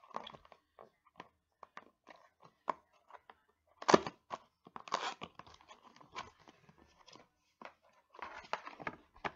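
The box and packaging of an electric nail drill kit being searched by hand: rustling and crinkling of wrapping with many scattered clicks and knocks, and one louder knock about four seconds in.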